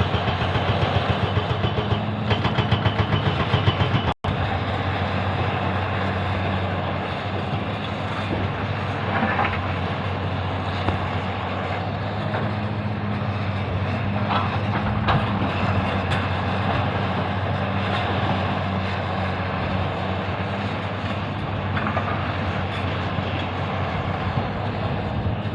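Excavator's diesel engine running steadily, a constant low hum under a wide mechanical noise, cutting out for an instant about four seconds in.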